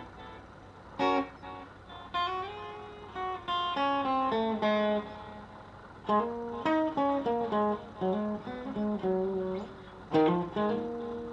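Clean electric guitar played through a homemade PT2399-chip delay pedal: picked single notes and double-stops, with a strummed chord about a second in and another near the end.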